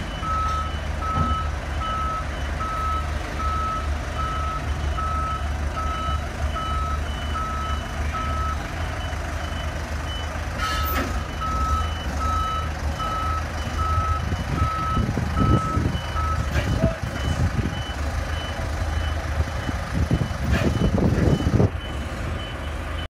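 Boarding-stairs truck moving slowly with its engine running low and an electronic warning beeper sounding in steady pulses; the beeper pauses for about two seconds near the middle and stops a few seconds later, while a fainter higher beep keeps going. Louder irregular noise joins toward the end.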